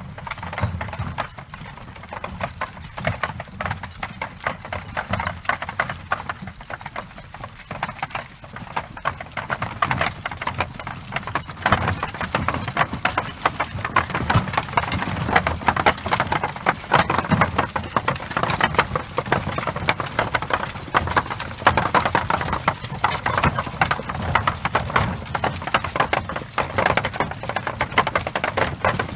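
Horse's hooves clip-clopping at a walk as it pulls a light cart or buggy, with the cart's wheels rattling along behind. It grows louder about twelve seconds in, as it passes close by.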